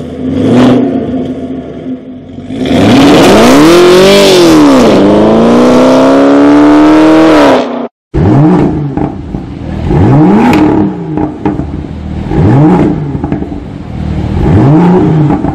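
A Chevrolet Camaro with Kooks headers and its stock cat-back exhaust opened up, idling with a quick blip, then revved hard for about five seconds, its pitch climbing, dipping and climbing again before it cuts off. Then a BMW M2 Coupé's turbocharged straight-six is blipped from idle four times, about every two seconds.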